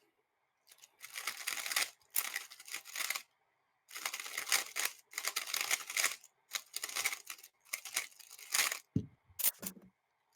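3x3 speedcube being turned fast during a solve: bursts of rapid plastic clicking with short pauses between them. A brief low thump comes about nine seconds in.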